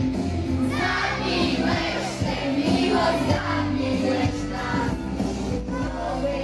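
Two female voices singing a pop song together into microphones over amplified backing music with a steady bass line.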